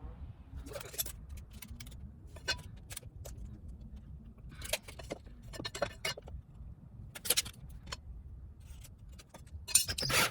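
Scattered metallic clinks and jangles of metal tools and hardware being handled, coming in short clusters, loudest near the end, over a steady low rumble.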